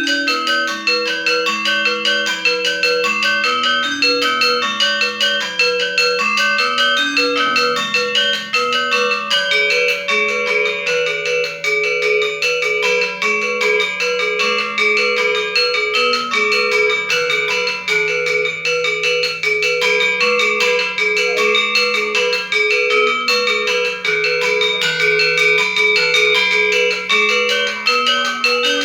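Balinese gender wayang, a bronze metallophone struck with mallets, playing its sangsih (interlocking) part: a slow stepping low melody under fast, continuous ringing figuration in the upper keys.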